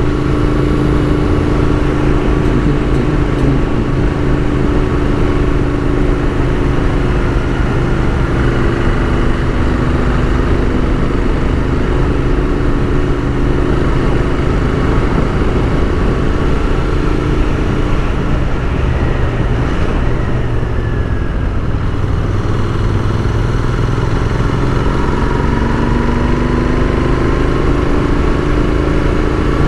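Royal Enfield Continental GT 650's parallel-twin engine running while riding, heard from on the bike with wind rush. The engine note eases down about two-thirds of the way in, then rises again as the rider accelerates.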